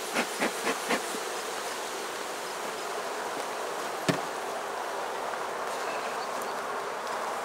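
Honey bees buzzing steadily in a dense cloud around an opened hive of a strong, populous colony. A quick run of soft pulses sounds in the first second, and a single sharp knock comes about four seconds in.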